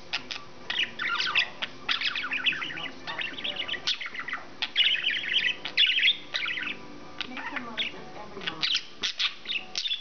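Male English budgie (budgerigar) warbling: a fast, continuous run of chirps, clicks and scratchy chattering notes, busiest about two and five seconds in.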